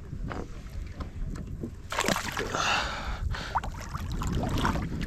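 Water sloshing and splashing beside a boat, with wind rumbling on the microphone. A louder rush of splashing comes about two seconds in.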